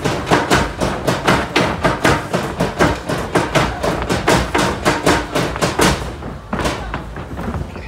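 Drums playing a fast, even beat of sharp strikes, about four a second. The beat stops about six seconds in, with one last strike shortly after.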